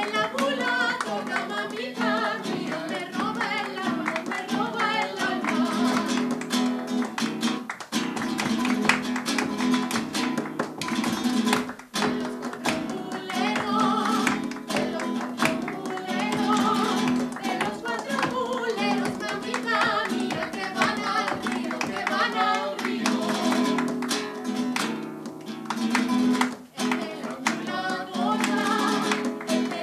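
Nylon-string classical guitar strummed rhythmically while several voices sing, with the audience clapping along in time.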